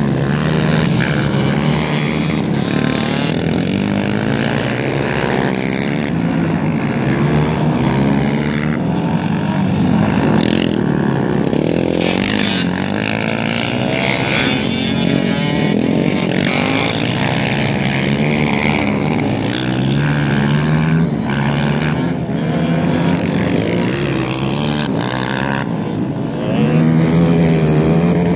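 Several quad-bike (ATV) engines racing, revving up and down repeatedly as the machines go round the ice track.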